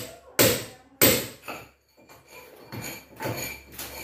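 Hard hammer blows knocking a hole through a 10-inch masonry wall for an AC's pipes: three loud, sharp strikes in the first second and a half, then a pause and fainter knocks.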